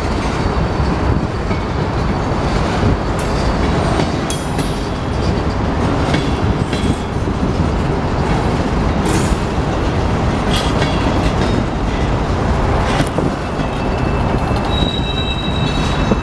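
Freight cars of a long, slow Union Pacific train rolling past close by: a steady rumble of steel wheels on rail with scattered clanks, and a thin, high wheel squeal near the end.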